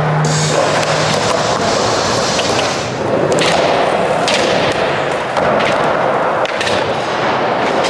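Skateboard wheels rolling over a smooth concrete floor, with several sharp clacks of the board popping and landing during flatground tricks from about three seconds in.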